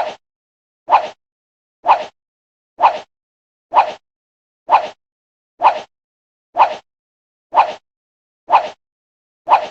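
Countdown timer tick sound effect: a short clock-like tick about once a second, ten in all, each a sharp click with a quick softer second strike, and silence between them.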